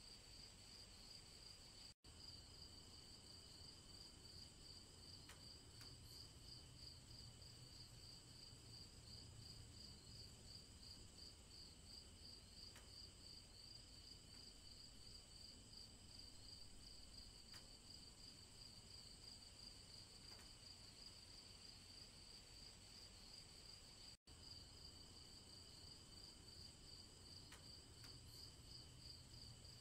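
Faint chorus of crickets: a steady, high, pulsing trill over a faint low rumble, cutting out for an instant twice.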